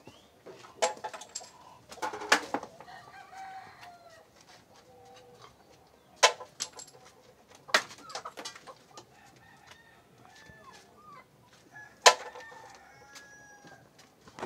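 Chickens clucking, with five sharp knocks spread through, the loudest a little after two seconds in and about twelve seconds in.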